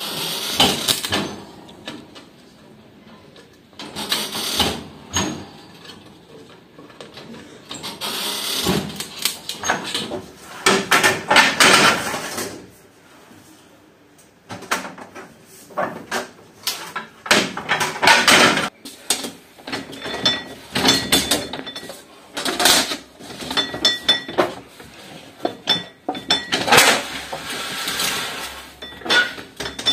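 Irregular clatter of knocks and scrapes from objects being handled, coming in clusters with short pauses between them.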